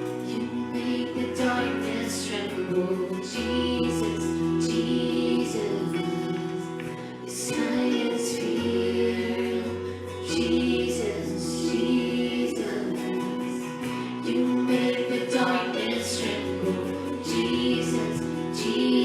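Worship music: a group of singers with a female lead sing over acoustic guitar and bass, the chords held steady.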